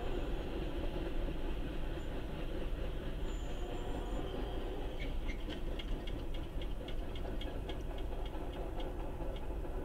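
Steady low rumble of a train at a grade crossing as the crossing gates go up. From about halfway through, a light, even ticking comes in at roughly three or four strokes a second.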